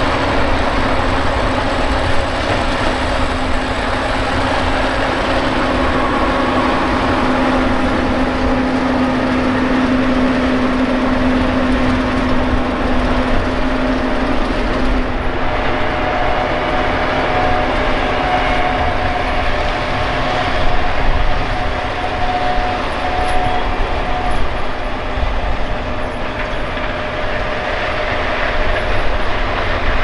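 A John Deere S780 combine harvesting corn and a John Deere 8370RT tracked tractor with its grain cart, running together: a loud, even drone of heavy diesel machinery with a steady hum under it. About halfway through, the hum drops away and a higher steady tone comes in for a while.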